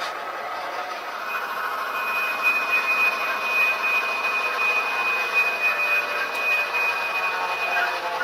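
Sound-equipped HO-scale diesel switcher model, its decoder playing diesel engine sound through a small speaker. A steady high, whistle-like tone joins about a second in and holds until near the end.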